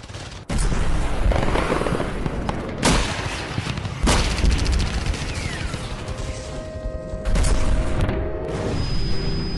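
Film battle sound effects: heavy booms about half a second, three seconds and four seconds in, and again near seven seconds, with rapid machine-gun fire over a dense rumble. In the last few seconds, steady music tones and a rising tone come in.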